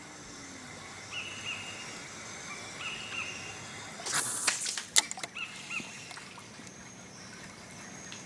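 Birds calling in short paired chirps every couple of seconds over a faint steady background. About four seconds in, a brief burst of water sloshing and trickling with a sharp knock just after it is the loudest sound.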